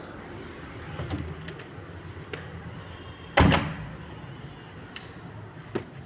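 A door being handled: one loud thump about three and a half seconds in, with a few lighter clicks and knocks around it, over a steady low background noise.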